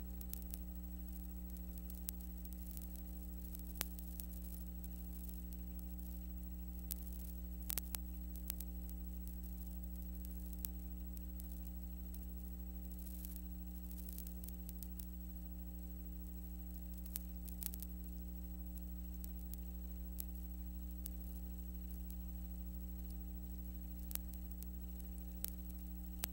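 Steady electrical mains hum with faint hiss and scattered clicks and crackles: the noise of a transfer of a film that has no sound of its own.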